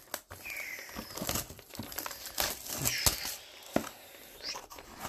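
Plastic wrapping on a sealed baseball card box crinkling and tearing as gloved hands strip it off and open the box, with a few sharp clicks of the cardboard being handled.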